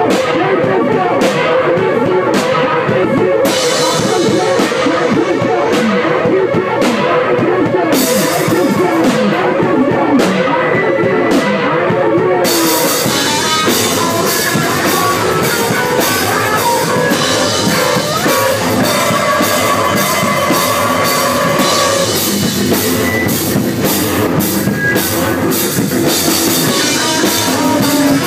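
Live rock band playing loud with drum kit and electric guitar, heard from within the audience. About halfway through, the sound turns brighter and fuller.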